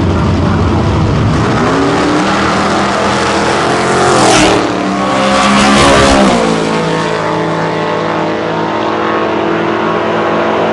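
Drag-racing pickup trucks launching down the strip: engine pitch rises as they accelerate. The engines are loudest about four to six seconds in, where the pitch falls as one truck passes close. After that the engine sound carries on steadily and a little quieter.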